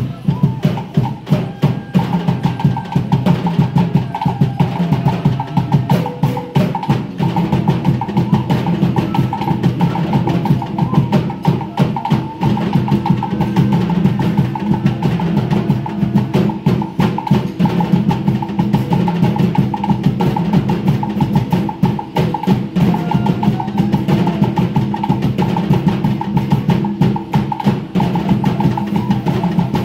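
Live percussion music: fast, continuous strokes beaten with sticks, over several steady ringing notes that sound throughout.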